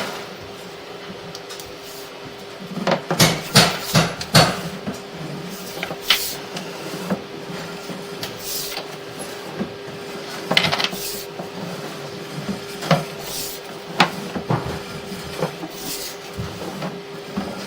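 Sewer inspection camera's push cable being pulled back through the cleanout: irregular knocks, clatters and scraping, with a burst of loud knocks a few seconds in, over a steady hum.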